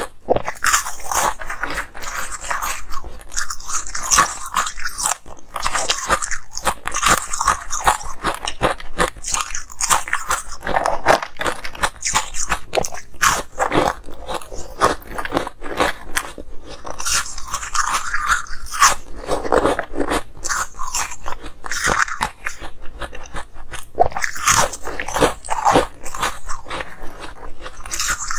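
Close-miked biting and chewing of soft, powdery blocks of coloured ice: a continuous run of crunching and crackling as each bite breaks up in the mouth.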